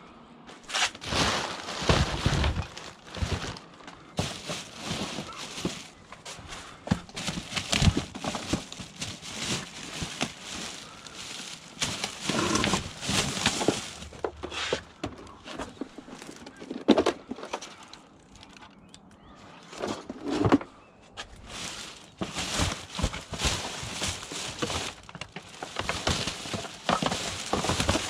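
Irregular knocks, clatters and rustling, with footsteps, as someone rummages through discarded rubbish looking for scrap.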